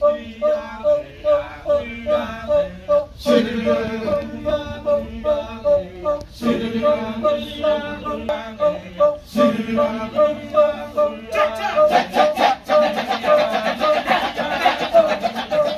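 Balinese music for a Ramayana dance performance: male voices singing over a quick, evenly repeating pitched rhythm, with a sharp stroke about every three seconds.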